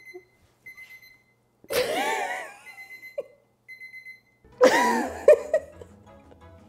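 An electronic timer beeping in short, high, evenly pitched groups every few seconds, sounding that the time is up. Over it a woman laughs out loud twice, about two seconds in and again about five seconds in.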